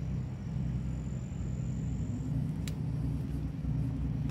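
Steady low engine rumble of a motor yacht moving slowly past at close range. A single sharp click comes a little past halfway.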